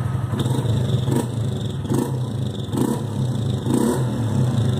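160 cc motorcycle engine idling steadily, with a short noise recurring about once a second that the owner blames on the fuel pump, which he thinks has dried out and needs lubricating.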